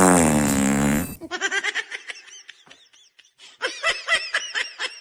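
Music stops about a second in, and then a person laughs in quick, short bursts that get louder near the end.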